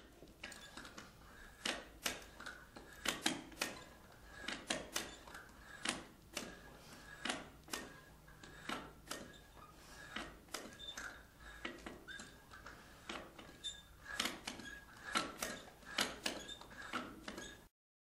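Irregular clicks and creaks from a plastic garden sprinkler pipe being pressurised by an air pump until it buckles, over a faint steady whine. The sound stops abruptly near the end.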